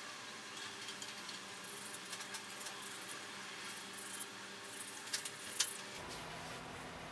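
Light clicks and taps of a knife against the tabletop as rolled dough is cut into strips, over a faint steady hiss. Two sharper clicks, the loudest sounds, come about five seconds in.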